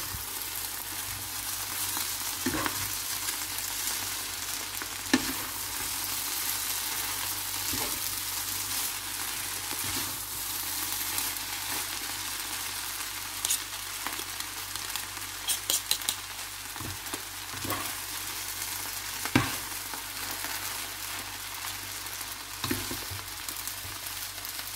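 Spring-roll filling of shredded cabbage, carrot and glass noodles sizzling as it is stir-fried in butter in a nonstick pan, a steady hiss. Now and then a utensil knocks or scrapes against the pan, with a quick few ticks about two-thirds of the way through.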